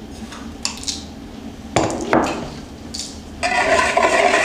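A spoon clinks and knocks against a ceramic bowl as sugar goes in. About three and a half seconds in, a wire whisk starts beating the sugar into warm milk in the ceramic bowl, a steady, busy clatter of wires against the bowl.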